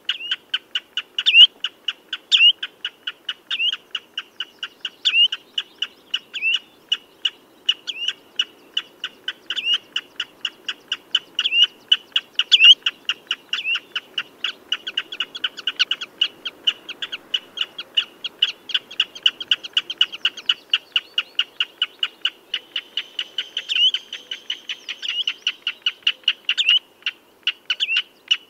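Common redshank calling: a long, fast series of short, high piping notes, several a second, with louder downslurred notes standing out about once a second.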